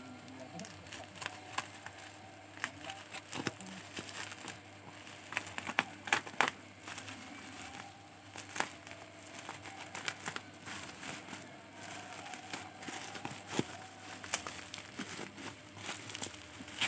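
Plastic packaging crinkling and rustling as it is handled, with scattered clicks and a cluster of sharper snaps about six seconds in.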